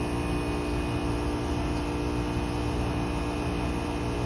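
Heat pump outdoor unit running in defrost mode: a steady compressor hum with one strong, even tone and no change in pitch or level.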